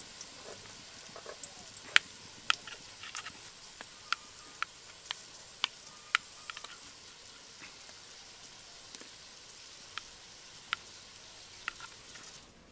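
Knife tip clicking sharply and irregularly against a ceramic plate, about a dozen times, as a steamed egg cake is cut into pieces. Under it, a steady sizzle of onions frying in hot oil in a karahi, which cuts off near the end.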